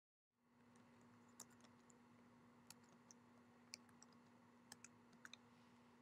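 Faint computer keyboard keystrokes as letters are typed into spreadsheet cells: about ten short, scattered clicks over a steady low hum that comes in about a third of a second in.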